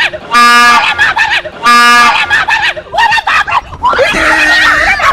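Two short, loud blasts of a train horn, each about half a second, within the first two seconds, followed by people screaming and shrieking.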